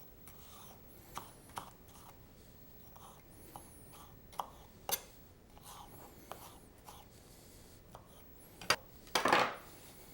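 Kitchen knife work on a cutting board while mango is cut away from the pit: scattered light taps and scrapes, with a sharp knock and a longer, louder scrape near the end.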